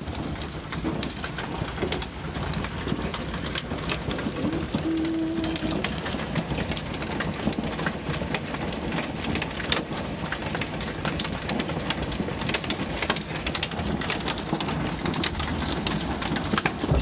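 Hailstorm: a steady hiss of heavy rain with hailstones striking hard surfaces in many sharp, irregular clicks and ticks.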